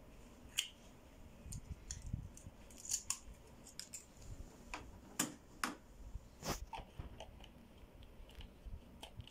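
An HP GT52 cyan plastic ink bottle being handled: scattered small plastic clicks and crinkles at irregular intervals.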